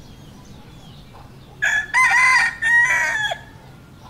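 A rooster crowing once, a loud cock-a-doodle-doo in three joined parts starting about one and a half seconds in and lasting nearly two seconds.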